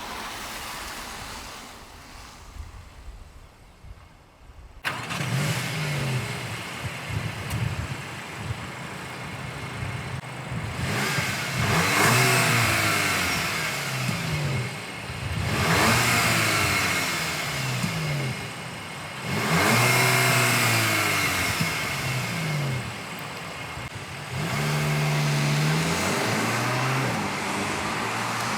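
Volkswagen Arteon's 2.0 TSI four-cylinder breathing through a Milltek part-resonated catback exhaust, accelerating hard in repeated pulls. The engine note rises in pitch and drops back several times as it shifts up through the gears. A quieter stretch opens the clip before the loud engine comes in suddenly about five seconds in.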